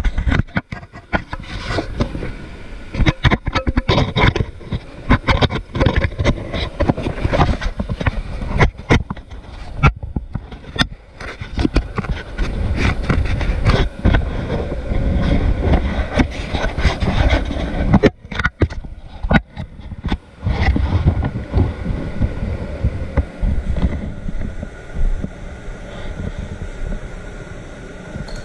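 Irregular rubbing, rustling and knocks of clothing against a body-worn camera's microphone as the wearer moves, over a steady rush of air in a paint spray booth. The handling noise eases for the last few seconds, leaving the air rush.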